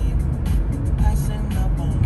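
Music playing on the car radio inside the cabin, over the low rumble of road and engine noise from the moving car.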